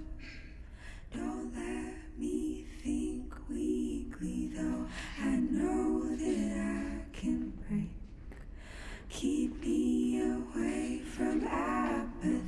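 Soundtrack song with a single voice singing slow, long held phrases over sparse or no accompaniment.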